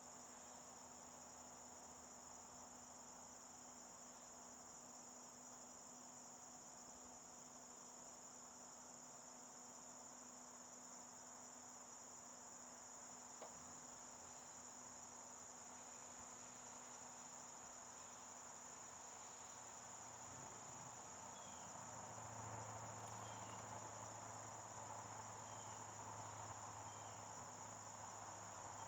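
Faint, steady chorus of crickets chirping, over a low steady hum that grows a little louder about three-quarters of the way through.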